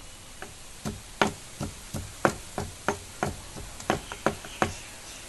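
Pestle pounding garlic in a mortar: about a dozen sharp knocks, roughly three a second, uneven in strength.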